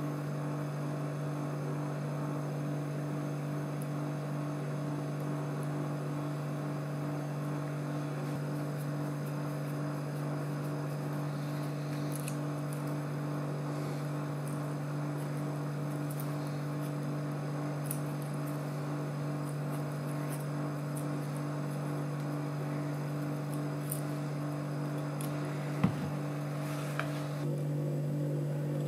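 A steady low electrical hum, with faint scattered ticks as a hand-held die is worked along a threaded steel lead screw, and one sharp click near the end.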